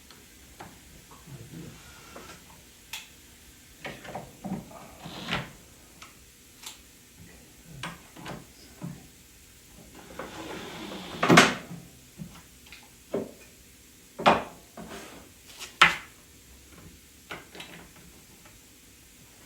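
Solid-wood cabinet parts being handled and fitted: irregular knocks, clicks and clunks of wood on wood, with a short scrape leading into a loud knock about eleven seconds in and two more loud knocks a few seconds later.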